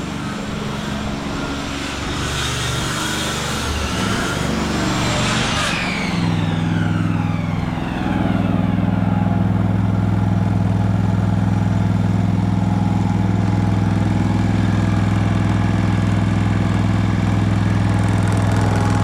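A high power-tool whine that winds down, falling in pitch about six seconds in. A steady low engine drone comes up under it and runs on, louder from about eight seconds.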